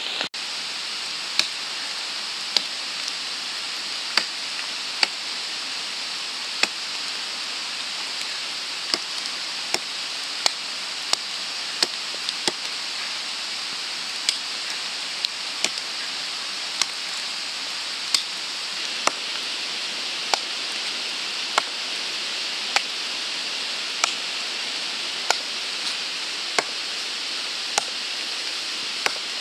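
Steady rain hiss with sharp, irregular taps, roughly one a second.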